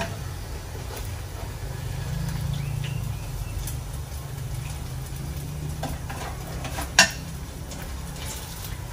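A cooking utensil knocks and scrapes against a wok and a metal draining pan as fried shrimp fritters are lifted out, with one sharp clack about seven seconds in. A steady low hum runs underneath.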